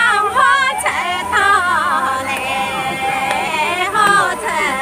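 Women singing a Guangxi shan'ge folk song in Chinese, in loud high voices, with one long held note a little after halfway.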